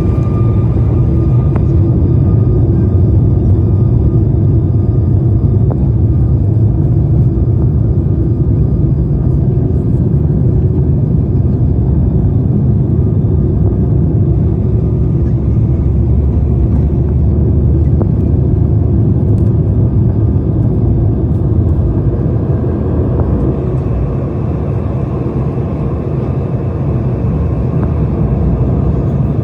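Steady low rumble heard from inside a moving vehicle, with a faint steady whine above it.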